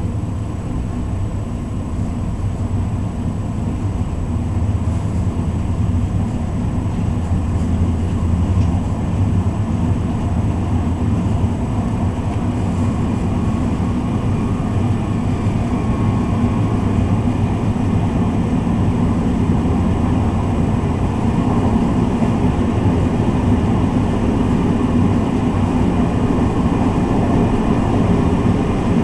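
Steady low rumble of a train running along the track, heard from inside the driver's cab, growing slightly louder over the stretch.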